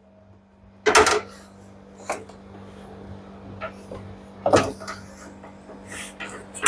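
Knocks and clicks of parts being handled and fitted on an LG front-loader washing machine's tub assembly as the dampers are locked and the door bellow is fitted, with a louder knock about a second in and another about four and a half seconds in.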